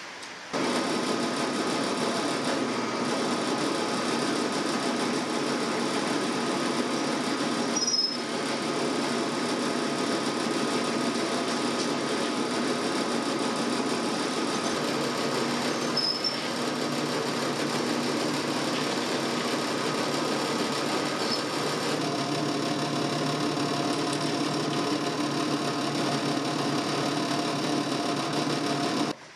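Benchtop drill press running steadily, its twist bit drilling into a thin metal sheet, starting abruptly about half a second in. A couple of faint squeaks come from the bit, and the hum changes pitch a little about three-quarters of the way through.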